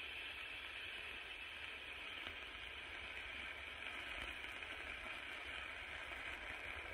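Lesli Feuerschwert, a sword-shaped Bengal flare (F1 youth firework fountain), burning with a steady hiss.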